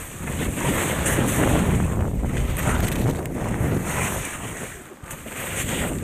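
Wind rushing over a helmet camera's microphone and skis scraping over hard, chopped snow on a fast downhill run. The rush swells and dips with the turns, dropping briefly about five seconds in.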